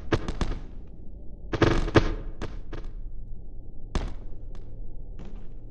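Irregular light knocks and clicks in small clusters, over a low steady hum.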